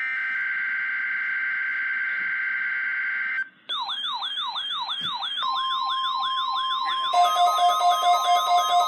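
Weather-radio alert: a steady, harsh data-burst buzz of the NOAA Weather Radio SAME header cuts off about three and a half seconds in. A moment later a weather alert radio's siren alarm starts, a fast repeating rising-and-falling wail. A steady tone joins it, and near the end a second, pulsing beep alarm sounds on top.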